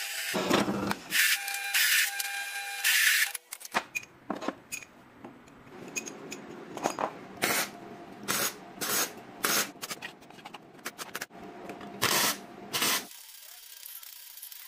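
Bench drill press running and boring through steel bar, its motor whining while the bit grinds. After a cut about four seconds in, stick (arc) welding crackles and sputters in irregular bursts, fading out near the end.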